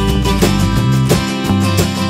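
Background music led by a plucked acoustic guitar, with a quick, steady rhythm of picked notes.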